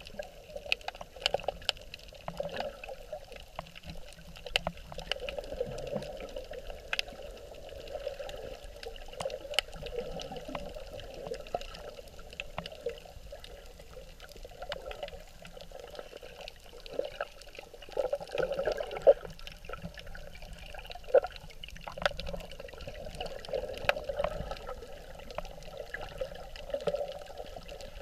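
Underwater sound muffled through a camera's waterproof housing: an uneven wash of moving water that swells and eases, with many scattered sharp clicks.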